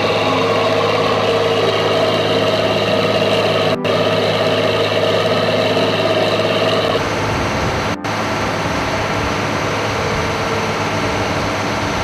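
Boat engine running steadily under way, a constant hum made of several held tones. About seven seconds in the sound turns rougher and deeper, and it cuts out very briefly twice.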